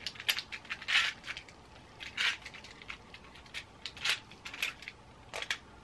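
Scattered crackling rustles of hair being handled and twisted in a pink plastic hair braiding tool, about half a dozen short bursts at uneven intervals.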